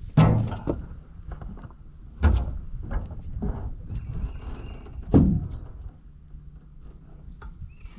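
Hollow knocks and thunks of gear and hull being handled in a small boat: three loud knocks, about a quarter second, two seconds and five seconds in, with lighter taps between.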